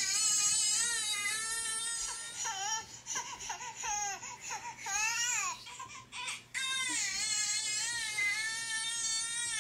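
Baby crying in long, high wails. A few seconds in, the wails break into shorter rising-and-falling cries, then turn into a long wail again near the end.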